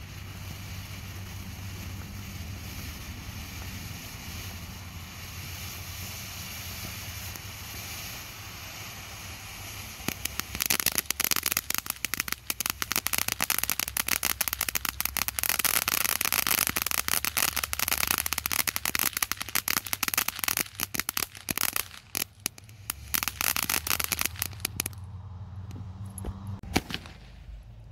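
Ground fountain firework spraying sparks with a steady hiss. About ten seconds in it breaks into dense, rapid crackling for some fifteen seconds, then dies out with a few last pops near the end.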